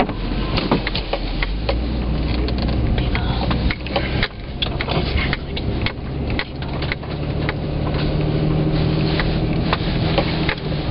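Hyundai Santa Fe driving over a snowy trail: the engine runs under a steady hum while the tyres crunch through snow and the body gives off many short knocks and rattles. The engine note grows steadier and louder in the second half.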